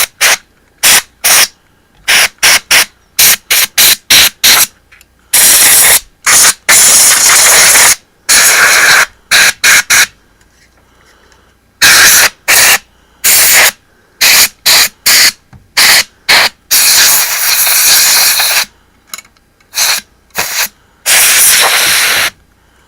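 Can of compressed-air duster spraying in a rapid string of short blasts, with several longer ones lasting one to two seconds.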